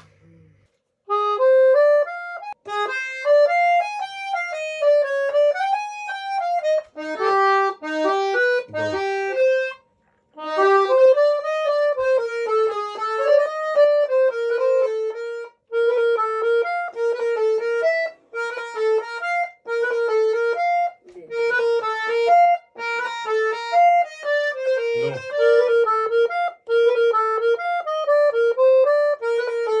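Piano accordion playing a Romanian hora melody in quick phrases, starting about a second in, with short gaps between phrases and a brief pause around the middle.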